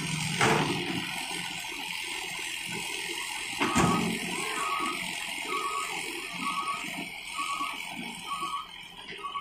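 Hitachi hydraulic excavator working with its engine running low. There is a knock about half a second in, and a louder thud just before four seconds in as a bucketful of soil drops into the steel bed of a dump truck. From then on a short high beep repeats about once a second, over a steady high hiss.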